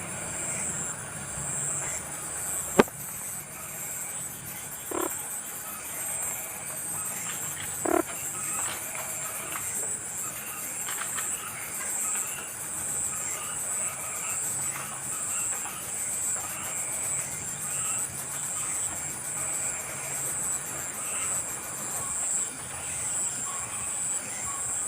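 Outdoor ambience of insects trilling steadily in a high, rapid pulse, with two short low croak-like calls and a single sharp click about three seconds in.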